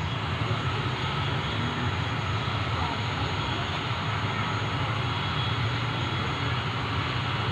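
Aircraft engine running steadily: a continuous low drone with a thin, steady high whine over it.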